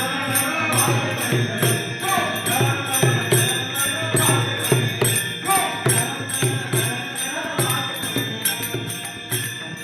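Marathi devotional bhajan: a voice sings a wavering melody over an even beat of small metal hand cymbals, about three strikes a second, with low drum strokes underneath. The music grows quieter toward the end.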